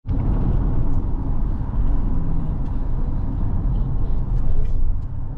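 A steady low rumble of noise, with most of its weight in the deep bass and no clear pitch.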